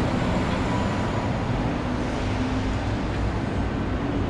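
Steady rumble of road traffic from a busy city street, with no single vehicle standing out.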